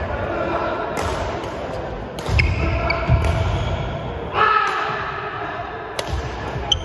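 Doubles badminton rally: rackets striking the shuttlecock in several sharp cracks, with shoes squeaking and thudding on the wooden court floor, echoing in a large sports hall.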